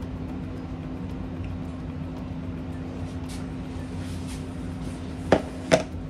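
A bundt cake pan set down on a kitchen countertop: two sharp knocks about half a second apart near the end, over a steady low hum.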